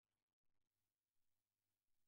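Near silence: only a very faint hiss and a low steady hum.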